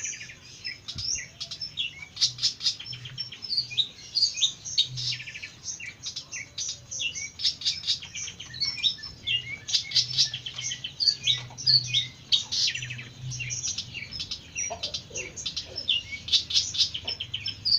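Long-tailed shrike (pentet) singing a fast, continuous, varied song of quick chirps, trills and scratchy rattles, with a faint low hum underneath.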